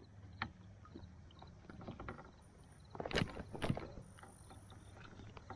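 Scattered light knocks and small water splashes around a kayak on a river, with a short cluster of louder knocks about three seconds in.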